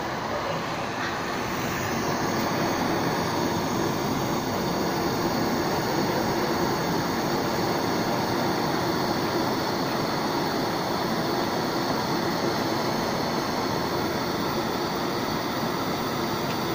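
Butane torch flame burning with a steady rushing hiss, getting a little louder about two seconds in.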